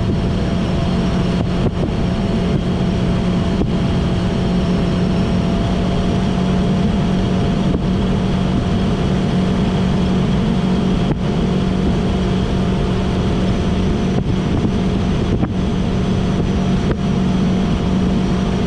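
Mercury Pro XS 115 outboard motor pushing a fiberglass boat along under way, running at a steady, unchanging pitch with the rush of the hull through the water.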